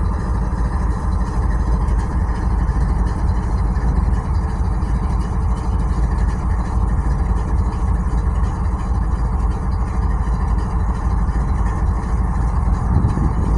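Diesel freight locomotive idling: a steady, deep engine rumble.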